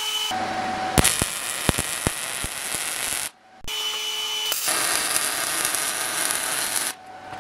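MIG welding arc on thin steel plate: two runs of steady crackling, the first with several sharp pops, broken by a short pause about a third of the way in.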